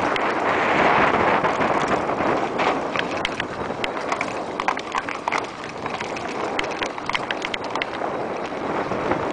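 Mountain bike ridden fast down a dirt-and-stone singletrack, heard from the rider's own camera: a rushing noise of wind and tyres, loudest in the first couple of seconds, then many sharp clicks and rattles as the bike bounces over the rough ground.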